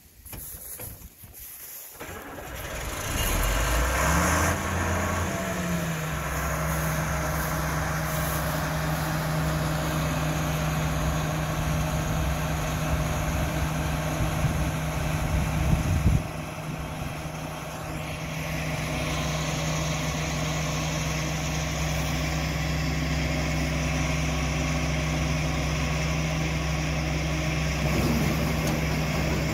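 John Deere 8820 combine's diesel engine starting about two seconds in, its pitch rising and falling briefly, then settling into a steady run. The level drops suddenly about sixteen seconds in, and the engine runs on steadily.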